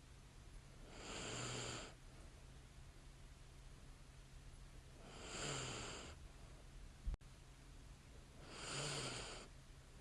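A sleeping woman breathing slowly with light snoring: three long breaths about three and a half seconds apart, each ending in a short low snore. A brief click comes a little past the middle, over a steady low hum.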